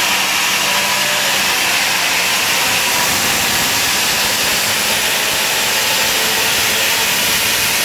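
Power tool cutting into concrete, running steadily and loud without a break.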